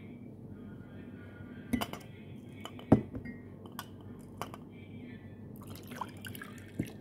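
A glass of water handled: several short clinks and knocks against the glass, the loudest about three seconds in, with light liquid sounds.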